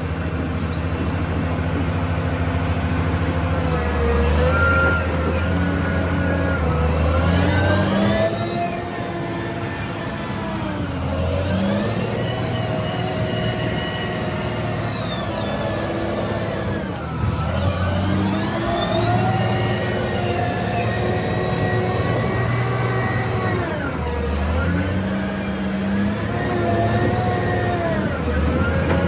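Caterpillar 990 wheel loader's diesel engine revving up and down over and over as it works the bucket, its pitch rising and falling every few seconds.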